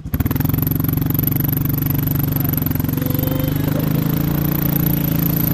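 Quad (ATV) engine running steadily while it tows two sleds through snow, heard close from the rider's seat.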